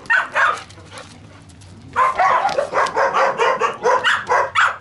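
Dogs barking: one bark right at the start, then from about two seconds in a rapid, continuous run of barks, about four or five a second.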